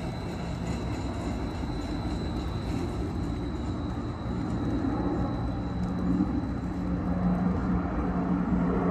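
Seattle streetcar running away along its track, a thin high whine fading out over the first few seconds. From about halfway a steady low hum grows louder.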